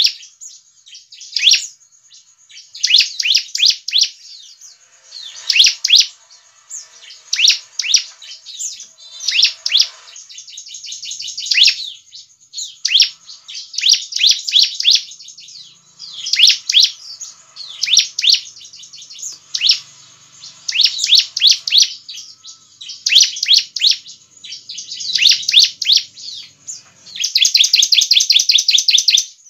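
Bar-winged prinia (ciblek) singing: bursts of rapid, sharp chirps repeated every second or two, running into a longer unbroken trill near the end.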